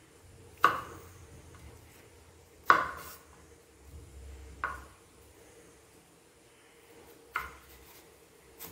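Kitchen knife cutting a green vegetable on a wooden cutting board: five separate sharp knocks of the blade striking the board, about two seconds apart, the first two the loudest.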